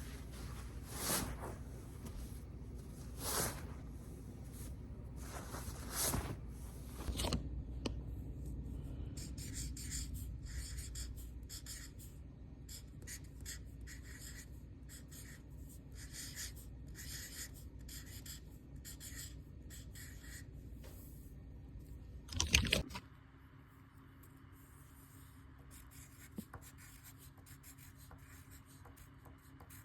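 Foley rubbing and scraping sounds: a few separate swishes at the start, then a long run of quick, short scratching strokes like writing on paper, with one loud burst about twenty-two seconds in before things go quieter.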